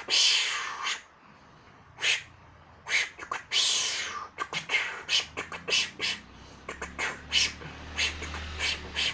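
Beatboxing: sharp mouth clicks and percussive hits, with a falling swept effect sound made by sucking air through cupped hands, once just after the start and again about three and a half seconds in. In the second half the clicks come quickly over a low hummed note.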